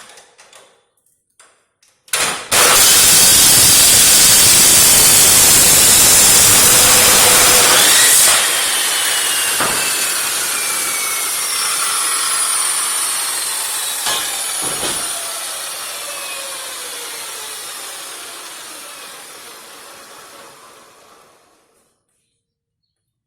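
Power saw starting up and cutting through 40 × 40 mm square steel tube for about six seconds, then switched off and spinning down with a slowly falling whine over many seconds, with a few knocks of the steel along the way.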